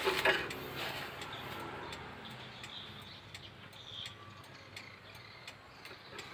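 Turn-signal flasher relay of a Mitsubishi T120SS clicking faintly in a regular on-off rhythm, now working again after its blown fuse was replaced, with some handling noise.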